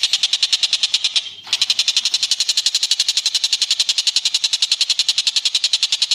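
A bird calling in a fast, high-pitched trill of about twelve notes a second, with a short break about a second and a half in.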